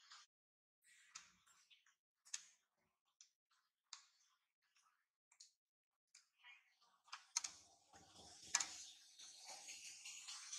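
Faint, scattered sharp clicks, turning into a denser crackling rustle from about seven seconds in.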